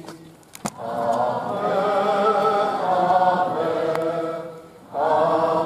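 A crowd of voices singing a slow hymn together, line by line, with a short pause between lines about a second in and another near the end. Two faint clicks sound in the first pause.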